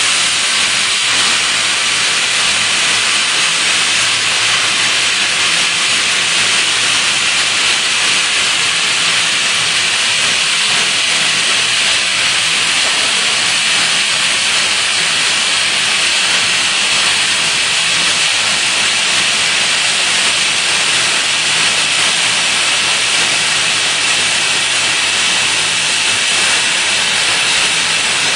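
Friction stir welding machine working an aluminium plate, its rotating tool travelling along the seam under cooling nozzles aimed at the weld. A loud, steady hiss that does not change.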